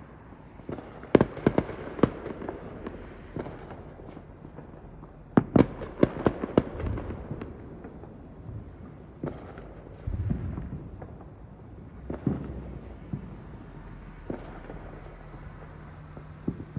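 Consumer fireworks going off in clusters of sharp bangs and crackles: a burst of several reports about a second in, a louder string of them around five to seven seconds, then scattered single pops.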